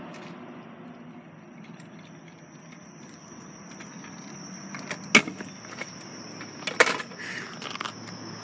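Two sharp clacks of a kick scooter hitting the pavement, about a second and a half apart, as it lands a bunny hop.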